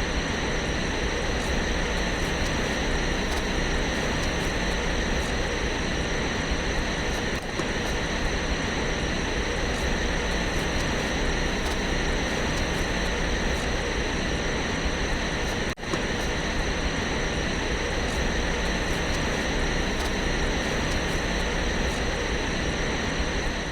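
Sci-fi sound effect of the C-9979 droid landing craft's engines idling, heard from a distance, played as a loop. It is a steady hiss and hum with a few thin steady tones on top, and it drops out for an instant twice, about 7 and 16 seconds in.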